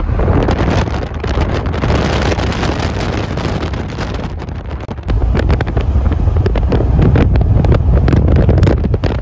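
Wind buffeting the phone's microphone in an open-top convertible driving at highway speed, over a low road rumble; the rush gets louder about halfway through.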